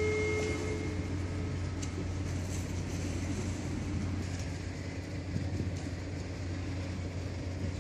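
Harbour ambience: a steady low rumble under an even hiss of wind and water, from a passenger ferry and tugboat manoeuvring offshore. A faint held tone dies away in the first half second.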